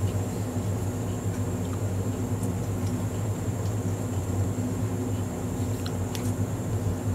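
Steady low mechanical hum with a thin high whine above it and a few faint clicks.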